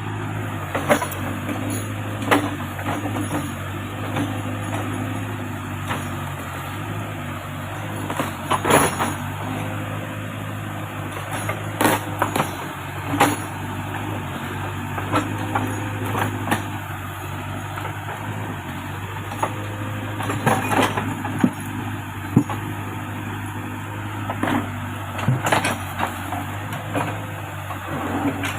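Backhoe loader's diesel engine running steadily, with sharp knocks every few seconds.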